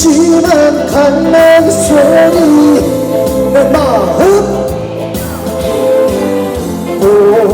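Live band music of a Korean trot song with singing, a held melody line over the accompaniment between the sung phrases.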